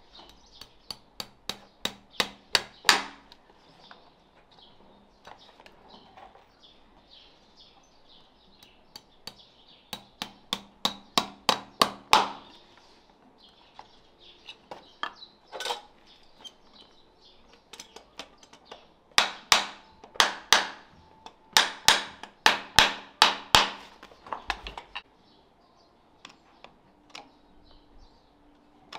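Farrier's hammer tapping horseshoe nails into a hoof: three runs of sharp strikes, each building to harder blows, with a single strike between the second and third runs.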